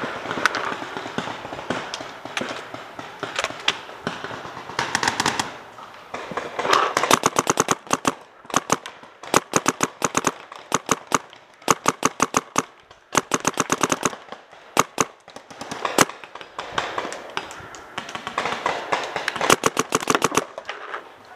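Paintball markers firing in rapid strings of sharp shots, several a second, in bursts of a second or two with short pauses between.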